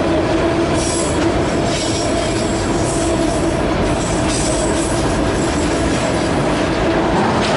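Empty autorack freight cars of a CSX train rolling past on the rails: a steady, loud rumble and rush of wheels on track, with a steady high tone running through it.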